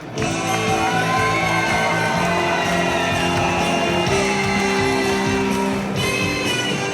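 Live music with plucked strings and held notes, with a voice singing over it.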